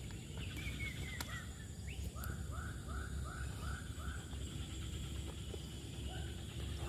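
A bird calling outdoors: a short falling chirp about half a second in, then a series of short, arched, repeated notes at a few per second, over a steady low rumble.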